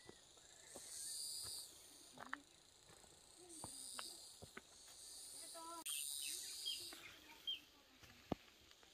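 Faint forest ambience: insects buzzing in repeated high phrases about a second long, a short warbling bird call a little past halfway with a few chirps after it, and scattered crackles of footsteps on a leaf-littered path, with one sharp snap near the end.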